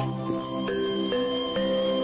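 Background music: held notes in several layers, moving to new notes about every half second.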